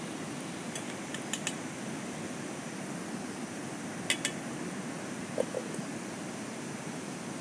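A few light clinks and taps of dishes and utensils, the sharpest pair about four seconds in, over a steady rushing background noise.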